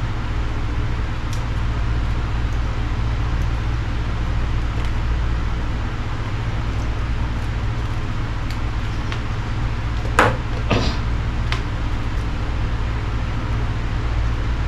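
Steady low hum of background noise, with two short sharp clicks a little past ten seconds in, the first the louder, and a fainter one about a second later.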